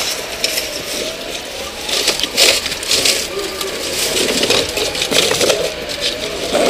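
Crunching and crackling of shattered glass as a firefighter pulls broken window glass away from an overturned truck cab, loudest about two and a half to three seconds in. People talk in the background.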